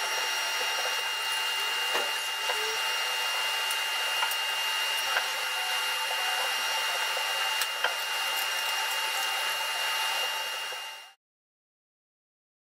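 Steady whir of running machine-shop machinery, with a few light metallic clicks and knocks as a steel plate is clamped on the milling machine's table. It fades out to silence near the end.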